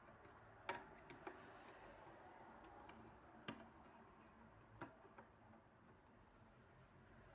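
Near silence broken by a handful of faint, irregularly spaced clicks as a Soviet Slava electromechanical clock is handled around its battery cover.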